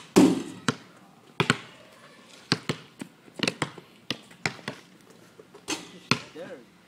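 Basketball bouncing on an asphalt driveway: about a dozen sharp, separate bounces at uneven spacing, the loudest right at the start.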